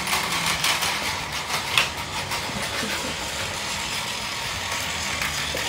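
Battery-powered Takara Tomy Plarail toy trains running on plastic track: a steady small-motor whir, with a few sharp clicks in the first two seconds.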